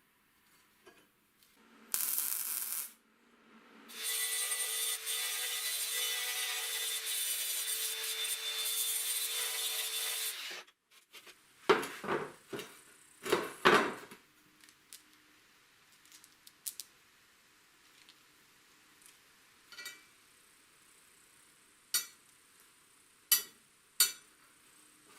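A power tool runs steadily for about six seconds after a short first burst, followed by knocks and clatter of tools or parts being handled, then a few sharp clicks.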